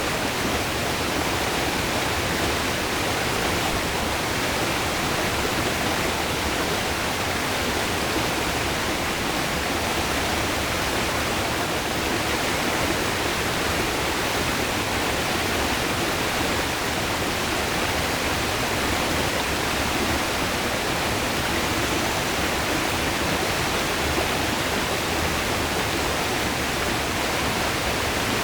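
River water rushing steadily over rocks, an even, continuous rush with no breaks.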